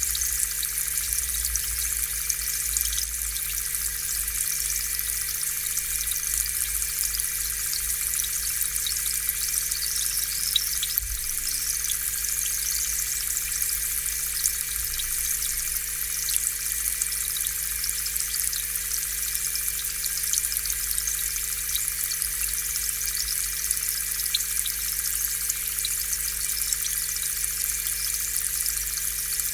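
Aquarium air pump running with a steady electric hum while its air bubbles rise and fizz continuously in the tank water.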